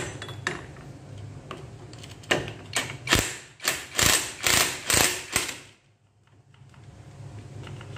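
Cordless impact wrench driving a motorcycle clutch-hub nut tight in about eight short bursts, with a ratcheting, hammering sound, over a couple of seconds a little after the start.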